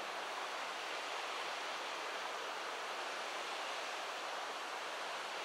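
Waterfall pouring down a vertical rock face: a steady, unbroken rush of falling water.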